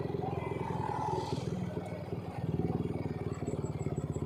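Yamaha NMAX 155 scooter's single-cylinder four-stroke engine running at low speed, heard from on the bike as a quick, even pulsing that gets a little stronger just past halfway.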